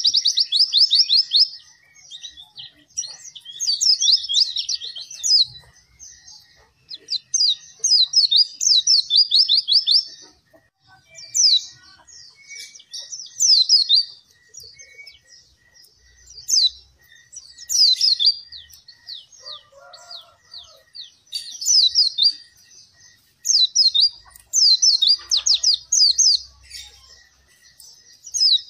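White-eye (pleci) in full, vigorous song: high, rapid phrases of quick down-slurred notes, each lasting a second or two, repeated about every two seconds with short pauses between.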